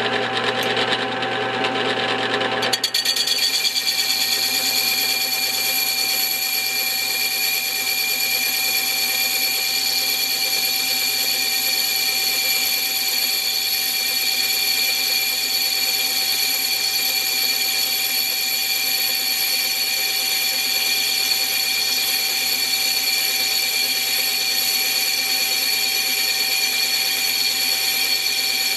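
Small HQ400 lathe-mill-drill spinning a brake drum at about 500 RPM while the tool takes a heavy cut. Rougher for the first few seconds, then a steady machine whine with several high tones.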